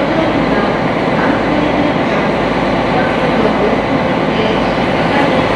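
Sightseeing boat's engine running steadily under way, a constant loud rumble and hum with the wash of the hull through the water.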